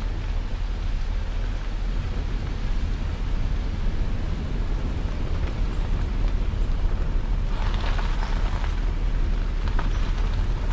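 Steady low rumble of a vehicle driving slowly along a gravel road, with a short spell of crackling noise about eight seconds in.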